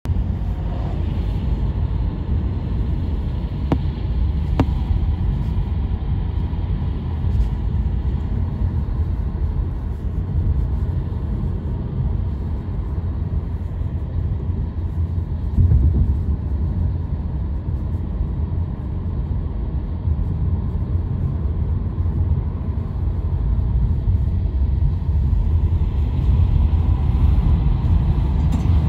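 Car driving along a road: a steady low rumble of road and tyre noise.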